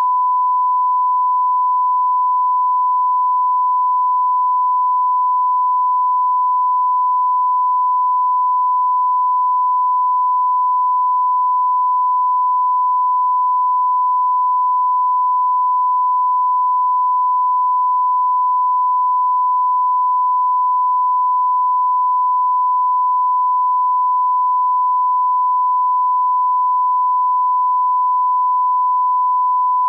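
A 1 kHz line-up tone: a single steady pitch at constant loudness that accompanies colour bars and serves as the reference for setting audio levels.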